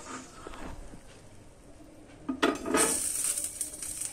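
A spatula knocking and scraping against a dosa pan (tawa), with a few sharp knocks about two and a half seconds in, then scraping and clinking. It is heard as the finished dosa is worked off the pan; the start is faint.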